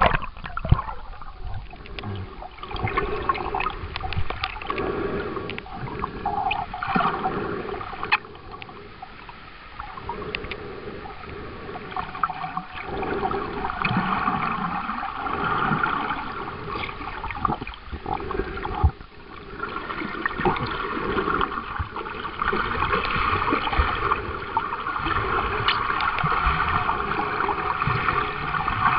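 Water sloshing and gurgling around a submerged camera, heard muffled from underwater, with a few sharp splashes of bubbles at the very start as it goes under.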